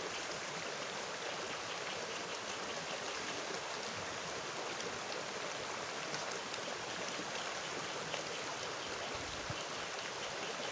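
Shallow rocky river running over stones and small rapids: a steady rush of flowing water.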